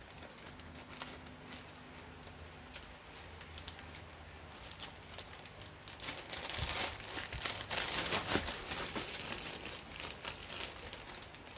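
Clear plastic zip-top bag of jigsaw puzzle pieces crinkling as it is handled and pulled open, with a dense run of small crackles that grows louder about six seconds in.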